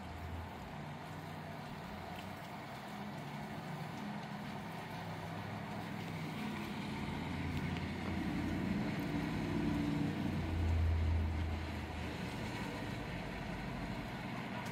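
A vehicle's engine hum builds, is loudest about eight to eleven seconds in, then fades, over a steady hiss of rain.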